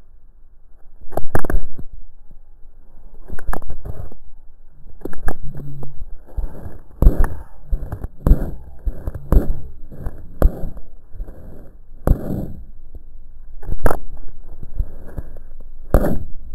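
A series of irregular knocks and crackles, about one every one to two seconds, over a low rustling. The loudest come about a second in and again near the end.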